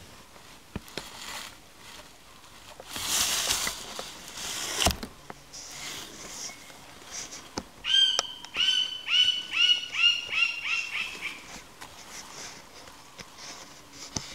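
A bird calling a run of about nine short, clear notes at roughly three a second, fading toward the end. Earlier there is a brief burst of hiss and a single soft thump.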